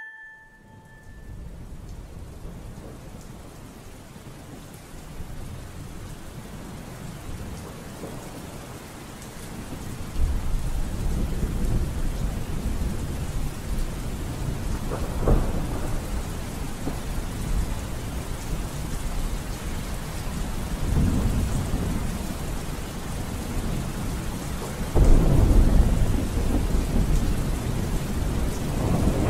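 Steady rain with rolling thunder. Low rumbles swell about a third of the way in and again later, the loudest near the end.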